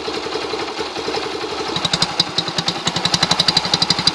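Yamaha Factor 125's single-cylinder four-stroke engine idling. A little under two seconds in, the exhaust note changes to a sharper, louder puttering of regular pops, about a dozen a second, as the hose is pulled out of the exhaust. This opens it up to a different, sportier sound.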